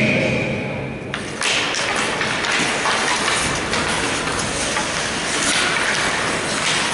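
Ice hockey play starting from a faceoff: about a second in, skate blades begin scraping the ice, with sticks tapping and clacking on the puck and against each other.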